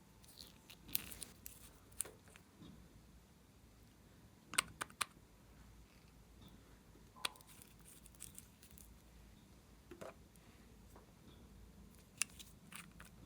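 Scattered sharp clicks and snaps of small objects being handled, three in quick succession a little after four seconds in, the rest spread out singly or in small groups.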